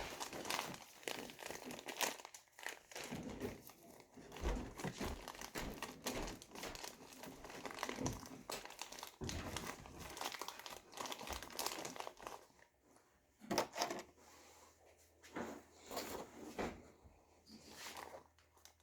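Cloud slime being squished and stretched by hand, giving a dense run of crinkly, crackling sounds. After about twelve seconds it thins out to scattered single crackles.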